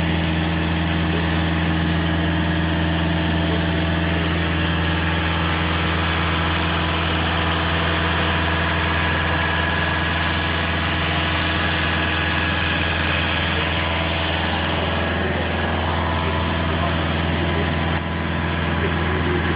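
Mobile elevated work platform's engine running steadily, a constant low hum that dips briefly about 18 seconds in.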